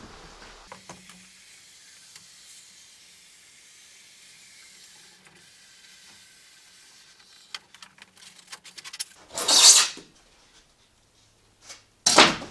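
Foam insulation panel being cut and worked with a wire-blade hot knife: a faint steady hiss, then scattered clicks and two loud, short rasping rubs of foam about two and a half seconds apart.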